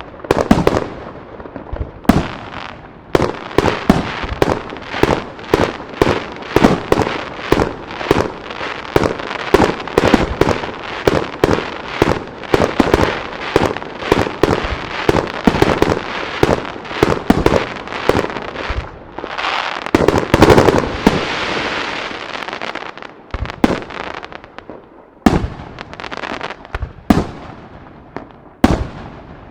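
Aerial firework shells bursting in a rapid barrage, about two to three bangs a second, each bang trailing off in reverberation. About twenty seconds in, a dense crackling hiss swells for a few seconds. The barrage then thins to a handful of single bangs near the end.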